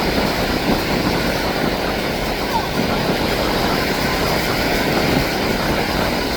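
Steady, even drone of a Canadair CL-415 amphibious water bomber's twin turboprop engines and propellers.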